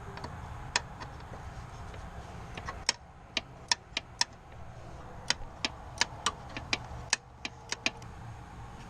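Sharp metallic clicks of a hand tool at work on the engine's belt idler pulley, one at a time and irregularly spaced, about two to three a second from about three seconds in, over a low steady hum.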